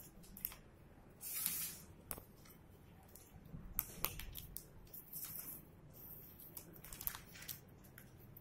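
A sheet of ruled notebook paper rustling and crinkling as it is folded and creased by hand: faint, irregular bursts, the longest about a second in, with a few light clicks between them.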